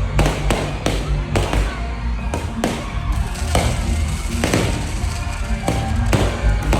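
Aerial fireworks shells bursting, about a dozen sharp bangs at irregular intervals, each trailing off, over loud music with a heavy bass line.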